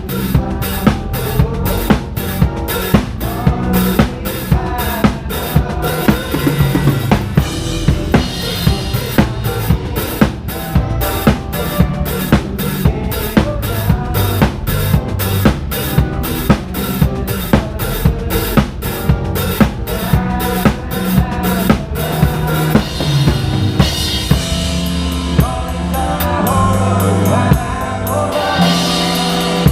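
Live band music heard from a close drum-kit microphone: bass drum and snare keep a steady beat of about two strong hits a second under the band. From about two-thirds of the way in the regular hits thin out and a brighter, held cymbal-like wash comes forward.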